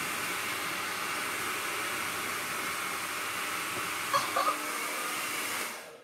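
Hairdryer blowing steadily on a loud setting, a constant rushing hiss, switched off near the end.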